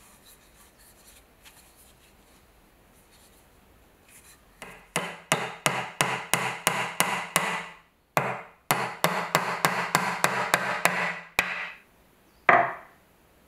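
Restored antique steel claw hammer driving nails into a wooden board: two runs of quick, even taps, about five a second, with a short pause between them. Near the end, one louder knock of the hammer set down on a wooden block.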